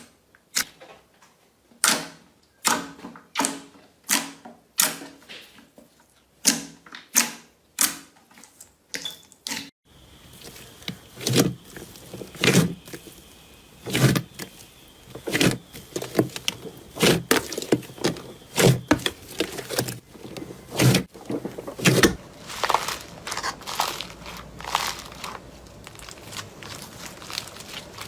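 Slime being handled for ASMR, giving a run of sharp crackling clicks and pops. About ten seconds in the sound changes abruptly to deeper, heavier pops, and near the end to a denser crinkly crunching.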